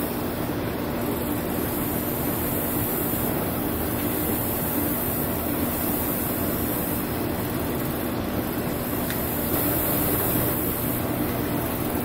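Steady mechanical hum with an even hiss over it, unchanging in level throughout.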